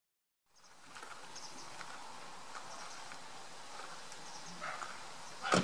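Barnacle geese and their goslings grazing on a lawn, with faint short calls scattered over a steady outdoor background that fades in about half a second in. A single sharp knock near the end is the loudest sound.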